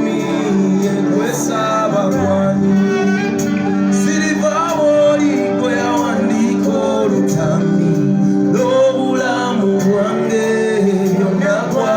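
Loud music with singing over it, steady throughout.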